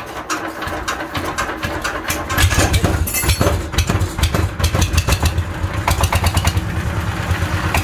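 Changchai 12 hp single-cylinder diesel engine running, picking up speed and loudness over the first two seconds or so, then running at a steady, even beat.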